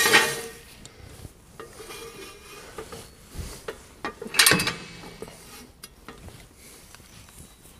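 Steel ratchet-type jack stand being handled and set in place: metal clanks and clicks, loudest just after the start and again about four and a half seconds in.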